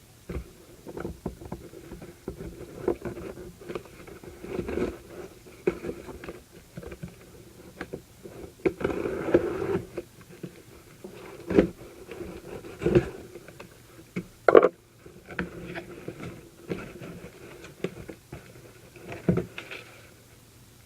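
A mail package being opened and handled by hand: irregular rustling and crinkling of packaging with scattered knocks and taps, and one sharper snap about halfway through.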